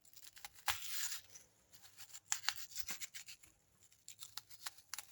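A spoon scraping and scooping out the inner layers of a raw onion in short, irregular strokes, with a longer scrape about a second in and a few sharp clicks of the onion flesh after.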